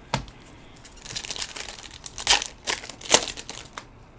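Trading card pack wrappers crinkling and tearing as packs are ripped open and cards pulled out, in a run of short rustles and rips.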